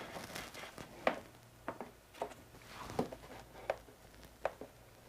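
Faint scattered clicks and light rustles of small parts being handled, about six of them, as the LED light's wire and plug are fed through a freshly drilled hole in a saddlebag panel to check the fit.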